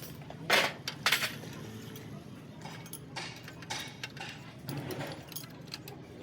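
Metal tools and parts being handled and set down: two sharp metal knocks about half a second and a second in, then lighter clinks and rattles, over a steady low hum.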